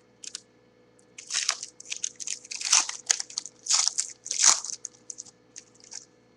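Trading-card pack wrapper crinkling and tearing as a pack is ripped open and handled, in a run of irregular rustles from about a second in until near the end.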